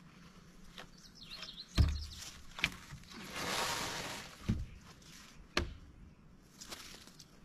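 Heavy rough-sawn timber slabs being handled and set on a garden-bed wall: a few dull wooden knocks, the loudest about two seconds in, and a longer scraping hiss around the middle as wood slides against wood.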